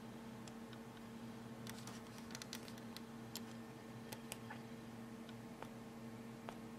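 Faint light clicks and taps of a plastic model-kit sprue being handled, most of them in a cluster in the middle, over a steady low hum.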